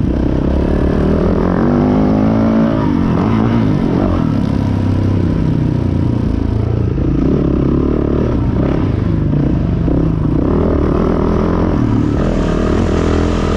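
Yamaha dirt bike's engine running hard along a motocross track, the revs climbing and dropping again and again as the rider accelerates, shifts and backs off.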